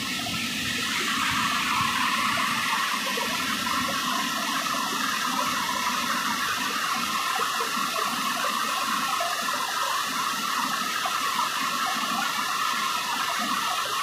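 Waterfall and forest stream rushing steadily, a continuous hiss of falling and running water.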